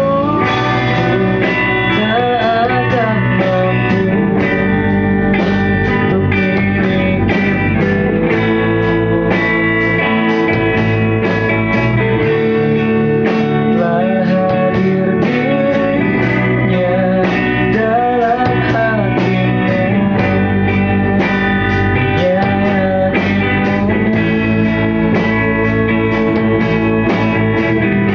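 A band rehearsing a song: guitars over a steady drum beat, with a melody line that bends up and down in pitch.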